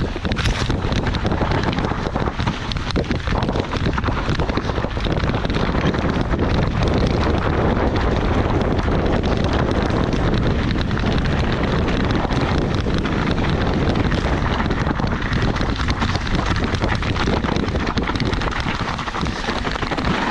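Heavy wind buffeting the microphone over the steady rumble of an enduro motorcycle being ridden.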